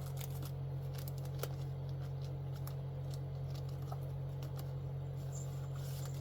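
Comic books in plastic sleeves being handled and sorted: scattered light crinkles and ticks over a steady low hum.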